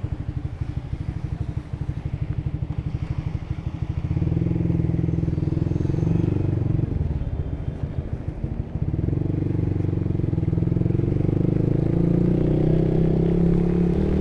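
Honda Supra GTR150's 150cc single-cylinder engine with a Tridente aftermarket exhaust, pulsing slowly at low revs, then pulling away under throttle about four seconds in. It eases off briefly about two-thirds through and its revs build steadily again near the end.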